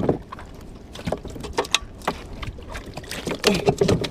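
A hooked fish splashing as it is lifted out of the water on the line, then a run of irregular knocks and clatters as it is brought aboard a small wooden canoe.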